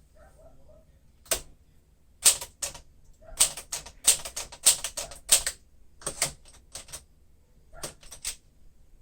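1953 Smith-Corona Super manual typewriter being typed on: sharp keystroke clacks of the typebars striking the platen. They come singly and in short quick runs with pauses between, densest in the middle.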